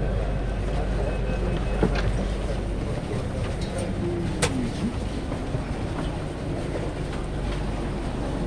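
Steady low rumble inside a crowded metro train car whose deepest part eases about three seconds in, with rustling and a couple of sharp knocks as passengers' clothes and bags brush against the phone.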